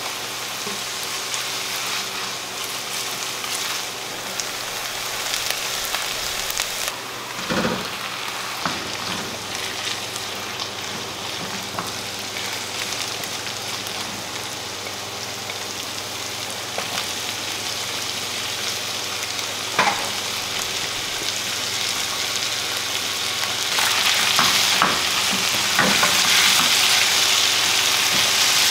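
Meat-pie filling of diced carrots, beef and potatoes sizzling in a non-stick frying pan while a spatula stirs and scrapes through it. A steady hiss is broken by a few sharp knocks, and the sizzle grows louder near the end.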